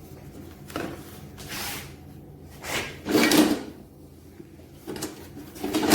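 Knocks and scrapes as parts of a cordless push lawn mower are handled and fitted together during assembly, a handful of separate clunks with the loudest about three seconds in.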